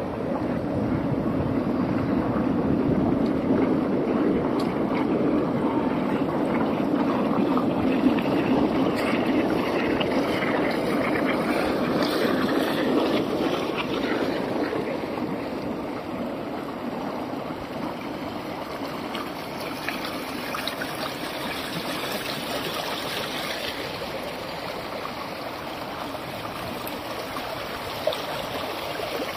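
Water rushing and rippling steadily along the textured granite channel of the Diana, Princess of Wales Memorial Fountain.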